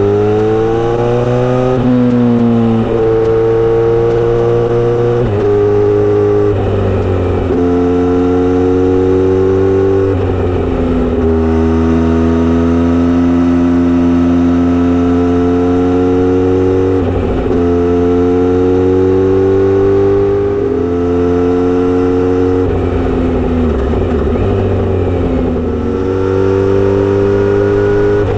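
Kawasaki Z900RS inline-four running through a short straight-through aftermarket exhaust while riding. The engine note climbs gently, drops back at each of about a dozen gear changes, and holds fairly steady in between.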